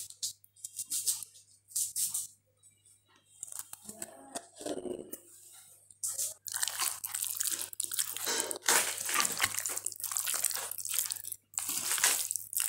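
Raw beef pieces coated in spice paste and mustard oil being mixed by hand in a bowl: wet, sticky sounds of meat and paste moving, in short bursts at first and then steadier from about six seconds in.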